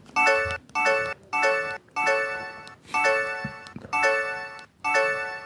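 Samsung SGH-J700 mobile phone playing a polyphonic ringtone: a bright melody of short repeated notes, about two a second, starting just after a brief pause.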